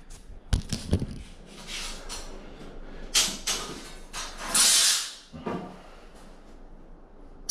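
Handling noises: two sharp knocks in the first second, then irregular scraping and rustling, the loudest about four and a half seconds in.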